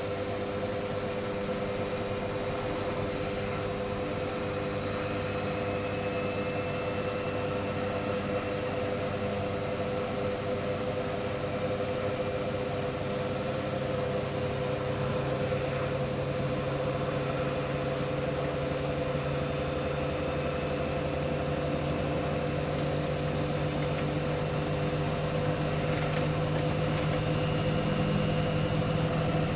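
Hoover washing machine's drum motor whining through its final spin, its high pitch rising slowly and the sound growing a little louder as the drum speeds up toward 1400 rpm, over a steady lower hum.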